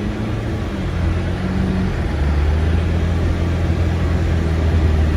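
2019 Subaru's flat-four engine pulling the car through very deep snow, a steady low drone that grows stronger about two seconds in, over a dense rushing hiss of snow scraping the underside and body.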